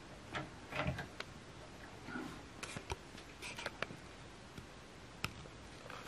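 Faint, scattered clicks and rustles of cables and plugs being handled at a wall-mounted router's ports, as a plug is pulled out and pushed back in.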